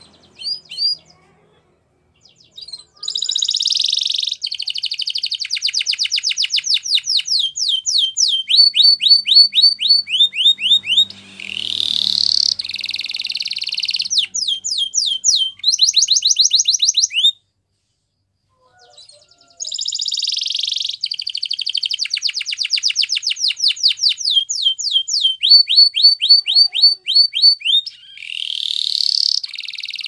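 Domestic canary singing: long phrases of fast trills and rapidly repeated downward-sweeping notes, switching from one trill to the next. The song breaks off for about two seconds midway, then a similar sequence of trills starts again.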